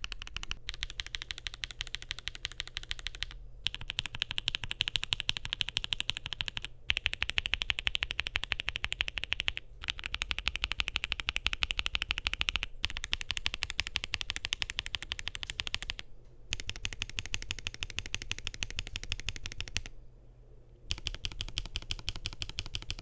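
Fast typing on a Keychron Q6 Max mechanical keyboard with lubed Moondrop x G-Square Lunalight switches in a polycarbonate plate, under JKDK keycaps: rapid, continuous keystrokes in runs of about three seconds with brief pauses between them, and a longer pause of about a second near the end.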